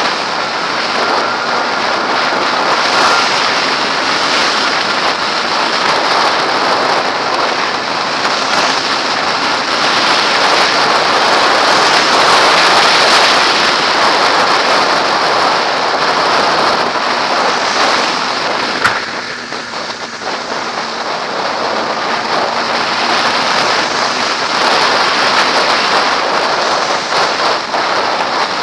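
Steady wind rush over a helmet-mounted camera while riding at speed, with the Kawasaki ZX-6R's inline-four engine faintly beneath it. A single sharp click about two-thirds of the way through, after which the rush eases a little.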